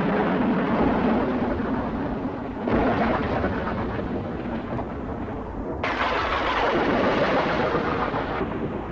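Three deep, noisy rumbles with no clear pitch, like thunder. Each starts suddenly and slowly dies away, the second about three seconds in and the third about six seconds in.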